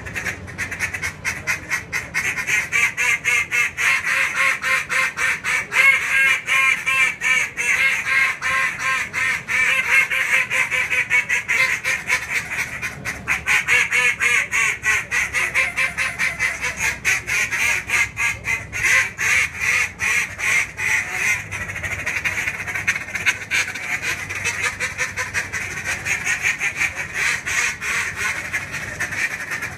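Two hand-blown duck calls, a JJ Lares T1 and a Molt Gear Q-AX, played together in a two-man contest routine: an unbroken stream of fast quacking and chatter with no pauses.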